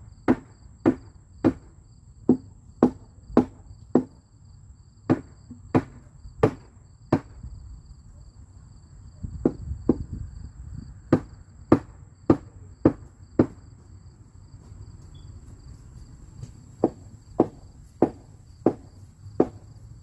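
Repeated blows of a hand tool striking, roughly two a second in runs of several strikes with short pauses between the runs. Insects chirp steadily underneath.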